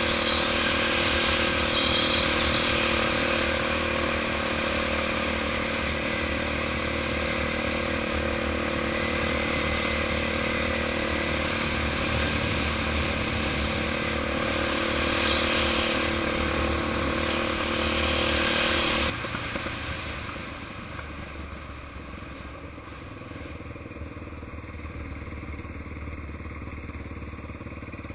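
Motorcycle engine running at a steady cruising pitch as the bike rides along a dirt road. About two-thirds of the way through, the engine note fades and drops to a quieter, rougher sound as the bike eases off.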